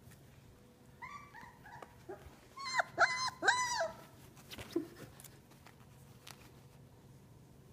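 Miniature dachshund puppy yipping and whining in play: a string of short, high, falling whimpers from about a second in, then a few louder yelps in the middle, and one last small call shortly after.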